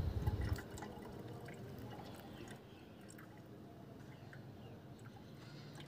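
Sting energy drink bubbling faintly as it is heated in a plastic bottle, giving a scatter of small irregular pops and ticks. A few low bumps come in the first half second.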